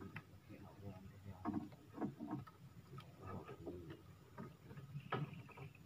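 Irregular knocks, taps and clicks from people moving and handling fishing gear in a small wooden boat, the loudest thump about five seconds in.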